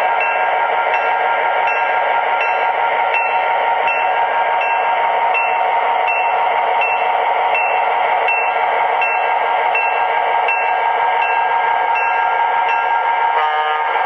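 Four MTH model EMD GP9 diesel locomotives running with their onboard diesel engine sounds at high throttle under a heavy pull: a loud, steady engine drone with a regular click about every three-quarters of a second.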